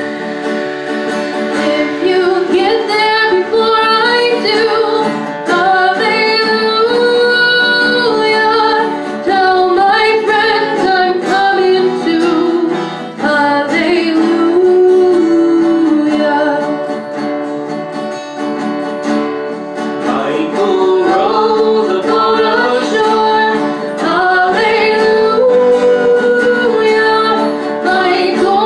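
Live folk band playing a song: a woman singing the melody over strummed guitar and electric bass.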